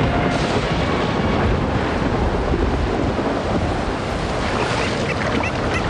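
Storm sea and wind: a loud, steady rush of waves and surf, with a few short high chirps near the end.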